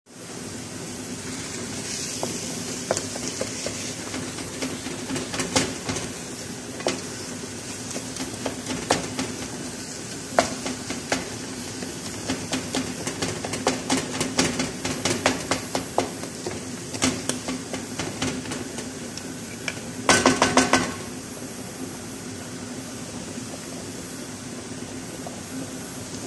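Wooden spatula scraping and knocking against a nonstick frying pan while stirring a minced-meat and tomato filling, over a steady hiss of frying and a steady hum. There is a quick run of loud knocks about twenty seconds in.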